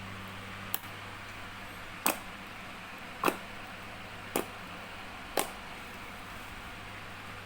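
Sharp clicks during slime making, five in all, about a second apart, over a steady hiss and a low hum.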